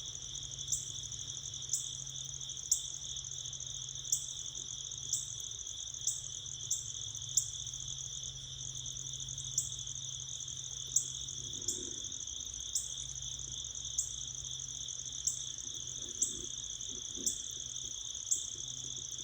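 A steady insect chorus, crickets by the sound of it, trilling without a break. Sharp ticks cut in at irregular intervals, roughly one a second, over a faint low hum.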